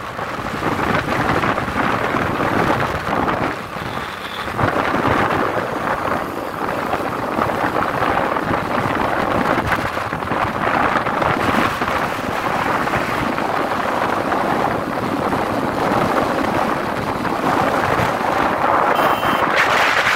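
Wind rushing and buffeting over the microphone of a phone carried along a highway at speed in a moving vehicle, mixed with road noise. The noise is loud and surges unevenly, with no clear engine note.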